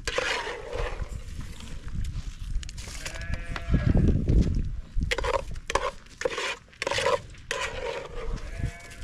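Goats bleating, one longer call and then a run of short ones.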